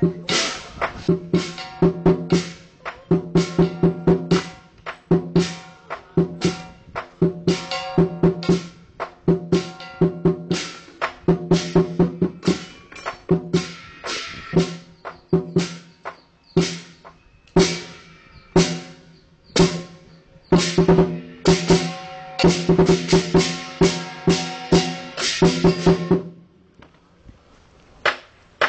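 Chinese lion dance percussion: a large drum beaten in fast rhythmic patterns, with cymbals clashing on the strokes. It drops to a brief lull near the end, then starts up again.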